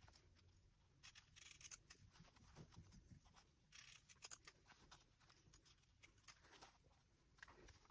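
Faint, irregular snipping of pinking shears cutting through fabric, trimming the curved seam allowance of a lined, fleece-backed bag piece.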